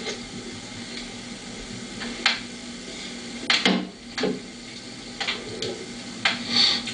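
Cups knocking as they are set down on and picked up from a table: a handful of short knocks and clinks, with a longer scrape-like one near the end, over a steady low hum.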